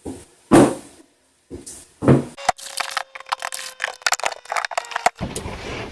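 Knife chopping celery on a cutting board. A few single cuts come first, then a quick run of sharp chops from about two and a half seconds in. A steady rushing noise takes over near the end.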